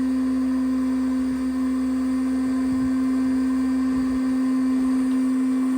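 A machine running with a steady, even hum, one strong low tone with fainter higher overtones, unchanging throughout.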